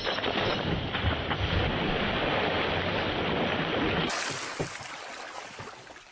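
A man plunges into the water off a boat with a splash, followed by steady rushing water and wind noise. About four seconds in, the sound cuts abruptly to a quieter scene of a small boat on the water with a few light knocks.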